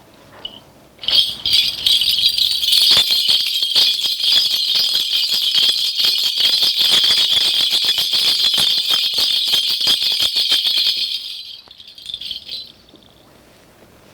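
A shaman's ritual bell cluster shaken rapidly and continuously for about ten seconds, a dense jingling rattle that starts about a second in and dies away near the end, as part of a divination.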